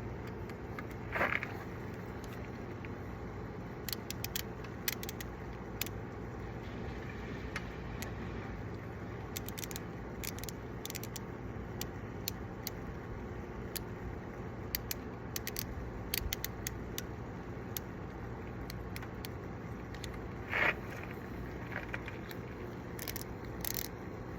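Bike lock being handled and fitted: scattered sharp clicks and light metallic rattling, with two brief louder scrapes, over a steady background hiss.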